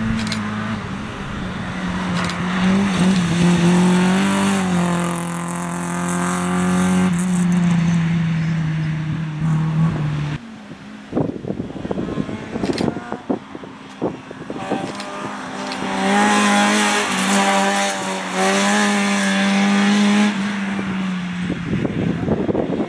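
Two small rally hatchbacks driven hard through a bend one after the other: first a Citroën AX, then a Citroën Saxo. Each engine revs high, and the pitch steps up and down with the gear changes. A short gap with a few knocks lies between the two cars.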